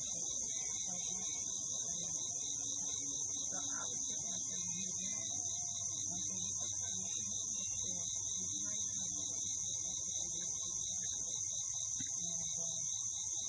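Steady, high-pitched insect chorus with a fast pulsing layer just beneath it, over faint, indistinct low sounds.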